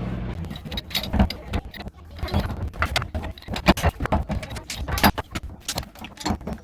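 Hand tools clicking and knocking on the metal fittings of an old water heater as a jammed part is worked loose: sharp, irregular clinks, several a second. A low steady hum stops just after the start.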